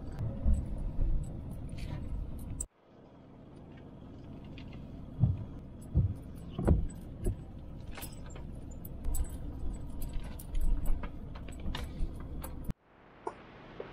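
Car cabin noise while driving slowly over a rough, unpaved road: a low rumble from the tyres and engine, with knocks and small rattles as the car goes over bumps. The sound breaks off abruptly twice, about three seconds in and near the end, where the footage is cut.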